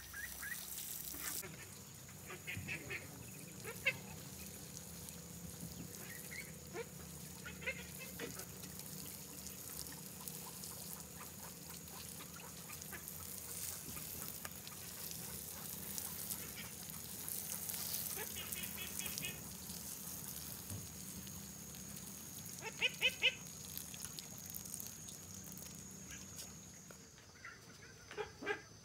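Ducks quacking in short bursts now and then, loudest about two-thirds of the way through, over the hiss of water sprinkling from a watering can's rose onto bare soil.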